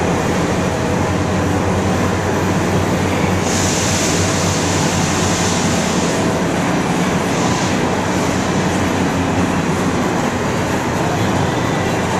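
Freight-type cars of the CPKC Holiday Train rolling past on the rails: a steady rumble of wheels on track. A high hiss rises over it about three and a half seconds in and lasts about three seconds.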